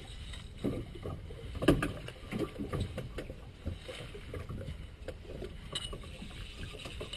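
Noise aboard a small boat at sea: water moving against the hull and wind, with scattered knocks from handling on deck. The loudest knock comes just under two seconds in.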